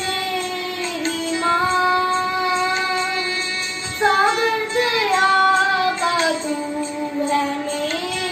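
A boy singing a Hindi hymn to Mary solo, holding long notes, with a few pitch bends about four seconds in.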